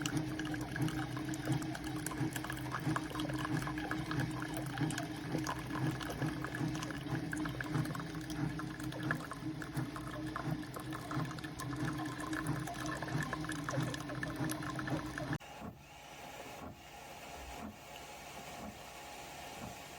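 SiFENE single-serve coffee maker brewing: its pump hums steadily while water gurgles through the pod. It stops suddenly about fifteen seconds in.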